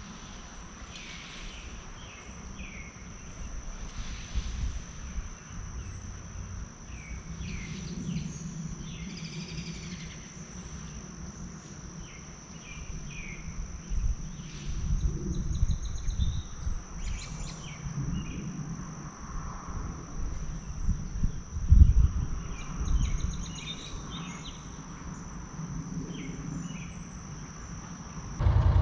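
Outdoor summer ambience: insects singing in a steady high-pitched drone, with scattered bird chirps and some low rumbling and knocks. A motor cuts in abruptly at the very end.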